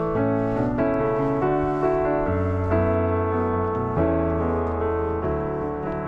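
Background music: a piano melody over long held bass notes.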